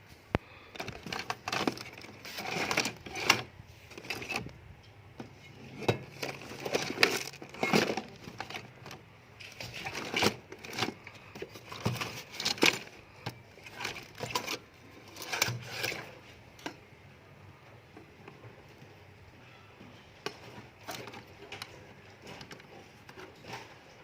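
Irregular clatter: clicks, knocks and rustling of small hard objects being handled, busy for the first two-thirds and sparser near the end.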